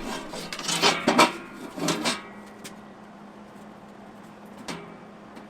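Sheet-steel stove plates clanking and knocking as they are positioned, several ringing metal knocks in the first two seconds and one more near the end, over a steady low hum.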